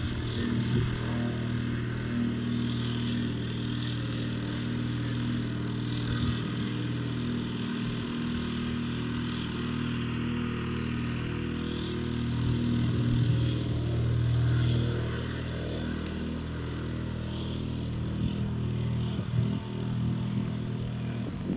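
Vibrating plate compactor's small petrol engine running steadily as the plate is pushed over loose gravel, compacting it.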